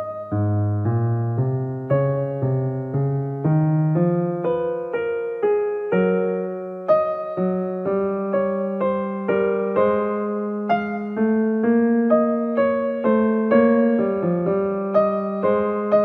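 Background piano music: a slow melody with notes struck about twice a second over longer-held low notes.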